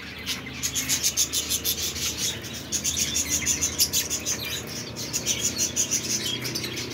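Budgerigars chattering: a fast, continuous run of short high chirps from many birds.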